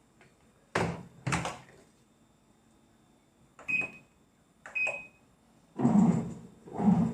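Two knocks, then two short beeps a second apart, like a Midea washing machine's control-panel buttons being pressed. Near the end comes a run of loud, low, pitched sounds about a second apart.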